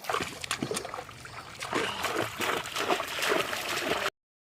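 Shallow water splashing and trickling in irregular splashes as it is stirred during hand fishing. The sound cuts off abruptly to silence about four seconds in.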